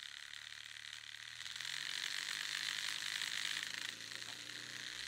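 A dense, high rattling buzz with a faint low hum beneath it. It swells over the first two seconds and dips briefly near the end.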